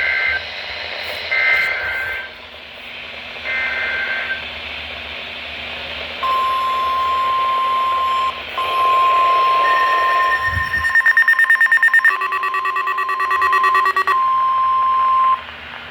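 NOAA Weather Radio Required Weekly Test heard on weather radios. First come three short bursts of the warbling SAME digital header about two seconds apart, then the long steady weather-alert tone from about six seconds in. Between about 10 and 14 seconds in, other electronic alert beeps and a fast pulsing tone sound over it, and the alert tone cuts off shortly before the end.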